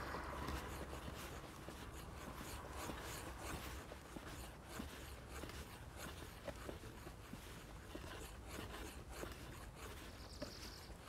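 Faint rustling and scraping with scattered, irregular small clicks, and a brief high-pitched sound about ten seconds in.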